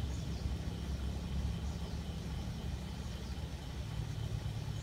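A steady low rumble, with faint short high chirps now and then.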